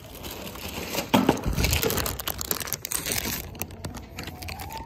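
Plastic bag of breakfast cereal crinkling and rustling as it is handled, with a dull knock about a second in.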